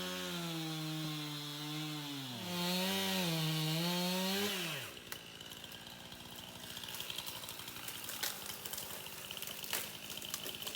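Two-stroke chainsaw cutting into a large cedar. About two and a half seconds in it gets louder and its pitch wavers and sags under load, then it winds down and stops about five seconds in. Quieter scattered ticks and crackles follow.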